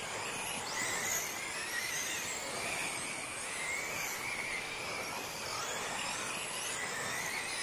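Several electric short course RC trucks racing on a dirt track, their motors and drivetrains whining in a rising and falling pitch as they speed up and slow for the corners.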